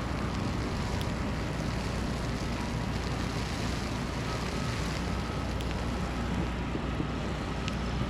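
Snowstorm city street ambience: a steady low rumble with a hiss of wind and a few faint clicks, and a faint thin tone joining about halfway through.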